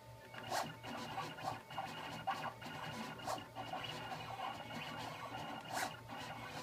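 KNK Zing Air cutting machine starting a cut about half a second in: its stepper motors whir in steady tones as the mat is fed through the rollers and the blade carriage moves, with sharp clicks now and then.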